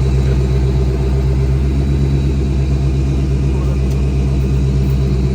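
A vehicle engine running steadily at idle: a loud, even, low hum with no change in speed.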